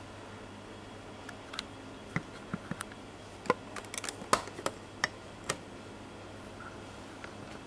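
Small sharp plastic clicks and taps, about a dozen of them between two and five and a half seconds in, as a finger pushes open a hinged transparent Lego door, over a faint steady hum.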